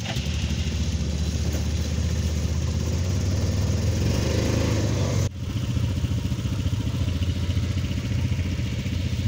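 Several small ATV engines, of up to 250 cc, running together at a steady idle. The sound breaks off briefly a little over five seconds in, and an ATV engine runs on.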